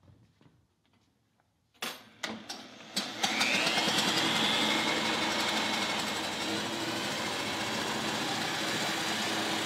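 Cordless drill spinning a Honda UT3 quarter-midget engine over by its flywheel nut for an ignition-timing check: a few clicks, then about three seconds in the drill winds up to a steady whine with the engine turning at over a thousand rpm.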